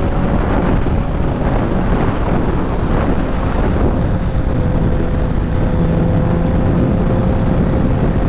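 Wind buffeting the microphone on a moving Honda CBR650F, with the bike's inline-four engine running at a steady speed underneath.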